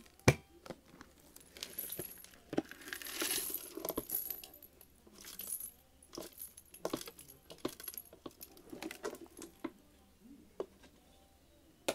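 Small debris of rubber loom bands, little plastic discs and crumbs being tipped and sprinkled onto a shaggy rug: a scatter of light clicks and rattling patter, with a sharp knock just after the start and a longer pouring spell a few seconds in.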